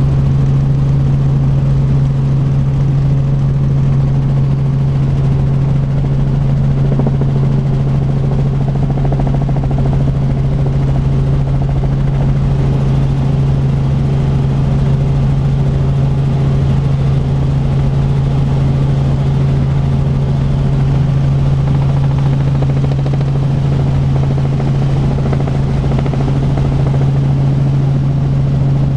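Robinson R44 Raven II helicopter in flight, heard from inside its cabin: a loud, steady drone of its Lycoming IO-540 six-cylinder engine and rotors, with one strong low hum that does not change.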